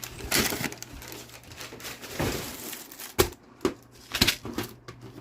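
Paper and packaging material being handled and crinkled in several short rustling bursts, with a couple of sharper light knocks.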